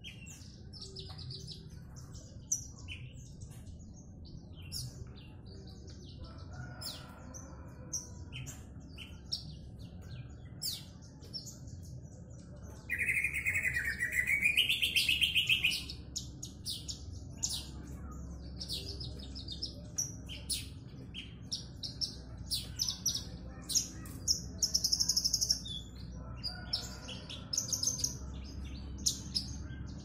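Caged branjangan (Horsfield's bush lark) singing: a run of short high chirps and trills throughout, with one louder warbling phrase that rises and falls for about three seconds roughly midway.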